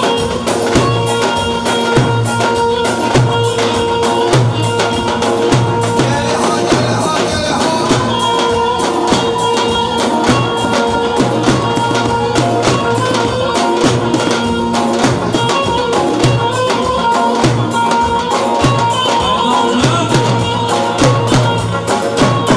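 Turkish folk dance music played live: davul bass drums beaten with sticks in a steady, driving rhythm under a loud sustained melody line.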